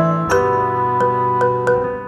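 Light background music: a melody of struck mallet-percussion notes over sustained pitched tones, with a new note entering about every half second.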